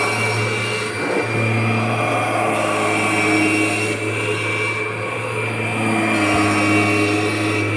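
2001 Kirby G6 upright vacuum cleaner running steadily, a constant low hum with a thin high whine over the motor's rush.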